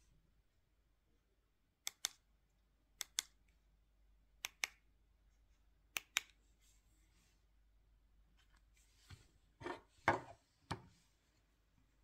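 Small crisp plastic clicks from a Ford Mondeo/Fusion smart key fob being pressed by hand, four times, each a quick double click of press and release. Near the end, a louder short rattle and scrape as the metal emergency key blade is slid out of the fob.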